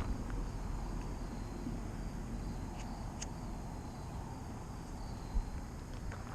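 Wind rumbling on the microphone outdoors, with a faint steady high trilling of insects behind it and one soft thump about five seconds in.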